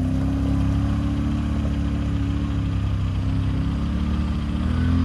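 Off-road vehicle engine running steadily at low revs while crawling through deep mud ruts.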